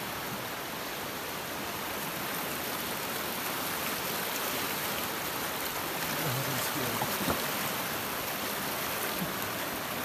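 A river rushing steadily over rocks, as an even wash of water noise, with a few faint ticks about seven seconds in.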